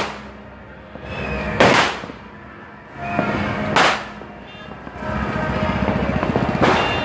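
New Year's fireworks going off: three loud bangs about two seconds apart, each preceded by a short rising swell, over a low steady hum.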